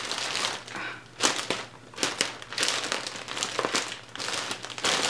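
Large black plastic poly mailer crinkling and rustling irregularly as it is handled and packed.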